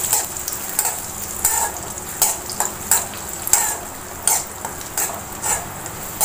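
Spoon scraping and clinking around an aluminium cheenachatti (Kerala wok), a stroke or two each second, as cashews and raisins fry in ghee with a steady sizzle underneath.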